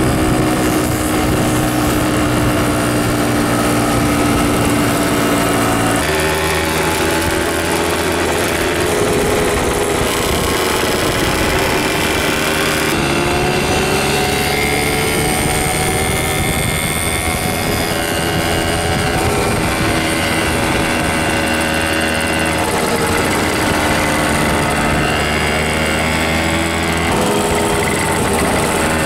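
Several small moped engines running as a group rides along the road, the engine note rising and falling with the throttle. The sound changes abruptly a few times as the mix of nearby bikes shifts.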